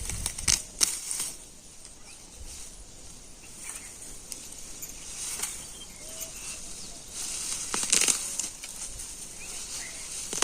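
Mint plants being pulled up by hand: stems and leaves rustling and snapping in short, scattered rustles, loudest about half a second in and again about eight seconds in, over a steady faint high hiss.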